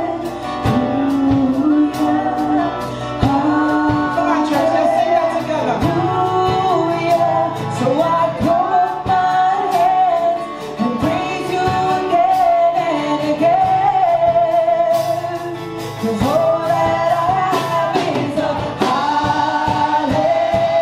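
Church worship music: a band playing a praise song while several voices sing the melody, with a steady percussive beat.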